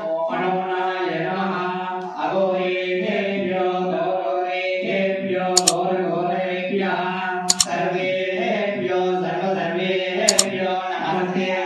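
A male voice chants Sanskrit homam mantras in a continuous sing-song recitation. A sharp double click cuts in three times, a couple of seconds apart.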